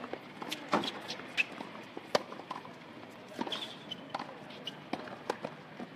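Tennis practice rally on a hard court: a series of sharp pops from racket strikes and ball bounces, several per second at times, with the loudest hit about two seconds in.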